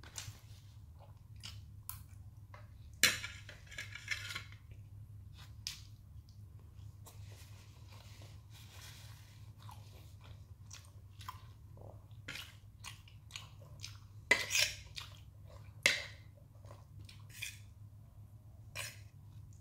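A person eating spicy instant noodles with rice and fried egg: chewing, with a metal fork tapping and scraping on the plate in scattered clicks, a few louder about 3, 14 and 16 seconds in. A steady low hum runs underneath.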